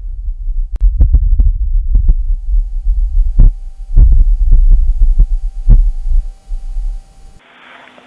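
Wind on Mars picked up by the Perseverance rover's microphone, with the rover's own noise filtered out: a gusty low rumble with scattered pops. It cuts off about seven seconds in, leaving a faint hiss.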